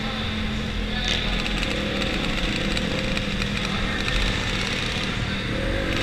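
Flat-track dirt bike engine running hard at a fairly steady pitch, heard from a camera mounted on the bike, with another racing motorcycle close ahead. A brief sharp sound about a second in.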